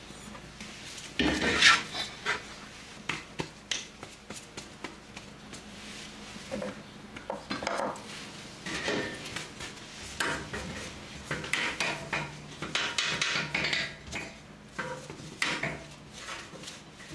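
Kitchen clatter: dishes, pots and utensils knocking and scraping in an irregular run of short knocks, loudest about a second and a half in.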